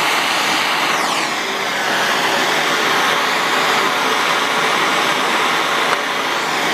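Handheld gas torch burning steadily with a loud hiss while heating a copper pipe and fitting for soldering, with a brief downward sweep in its tone about a second in.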